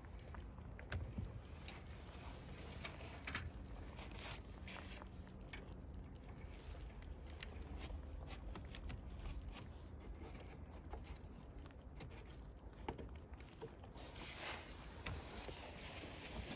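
Faint scattered clicks and rustles from rabbits shifting and nibbling in a wire-floored wooden hutch, over a low steady rumble.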